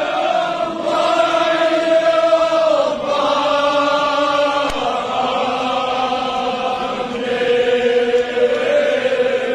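A crowd of men chanting together in unison, in long drawn-out phrases of a few seconds each.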